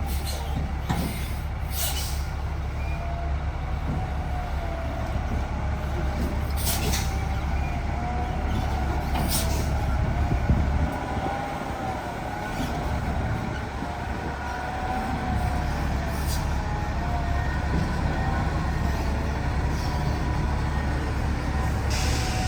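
A truck engine running with a steady low rumble that eases off for a few seconds midway, over a wavering whine and a few sharp clicks.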